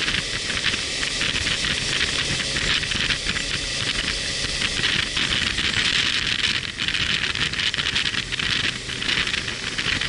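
Steady wind rush over the microphone of a moving motorcycle, with engine and road rumble underneath.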